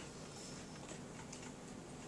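Faint room tone in a small room, with a few small, light clicks.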